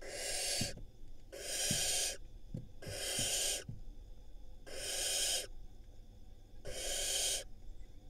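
Barn owl nestlings giving five long rasping hisses, about one every second and a half: the snoring food-begging call of barn owl chicks.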